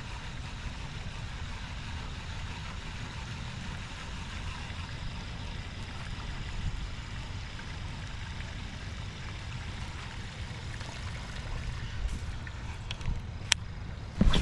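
Steady low outdoor background rumble, with a few short sharp clicks near the end.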